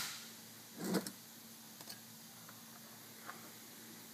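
Metal turbo parts being handled on a wooden workbench: a sharp metallic click, then a dull knock about a second in, followed by a few faint ticks of hardware and parts touching.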